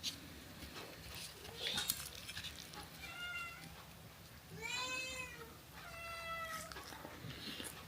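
A cat meowing three times, the middle call longest and loudest with a rise and fall in pitch, over light clicks and taps.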